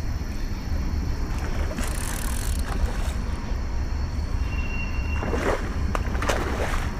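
A hooked catfish splashing at the water's surface in a few short bursts as it is reeled in close, over a steady low wind rumble on the microphone.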